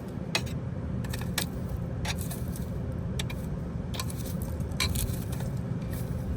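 Metal clicks and clinks from tools and parts being handled at a refrigeration condensing unit, about a dozen short sharp ones scattered irregularly, over a steady low rumble.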